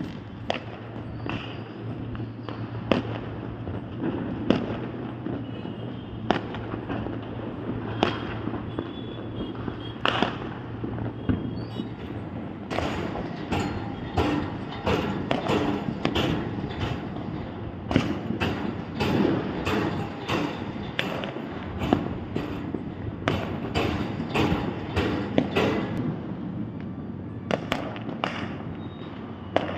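Fireworks going off: a long run of sharp bangs, sparse at first, then coming thick and fast through the middle before thinning near the end.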